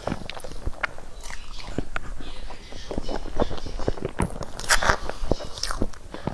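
Close-miked eating sounds: wet mouth clicks and smacking while chewing soft mango pudding, with a metal spoon scraping and clicking against its cup.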